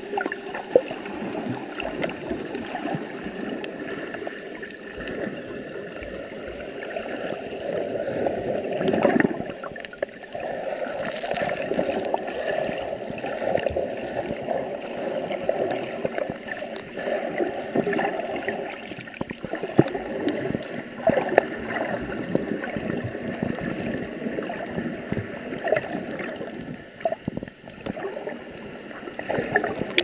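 Underwater sound recorded by a YI 4K action camera in its waterproof housing: a steady gurgling wash of moving water with many small clicks and knocks scattered through it.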